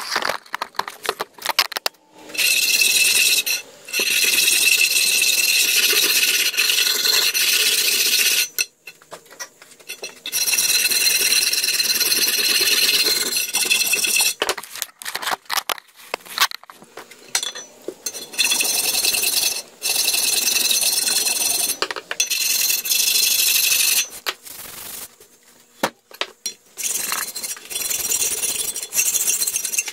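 Flat hand file being drawn across the steel slide bar of an old forged vise, a loud scraping in stretches of several seconds with short breaks, the metal ringing faintly under the file.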